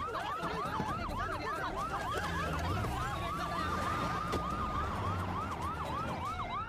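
Police sirens, more than one at once, going in a fast up-and-down yelp about three times a second. Partway through, one of them holds a steady tone for about two seconds before the yelp resumes.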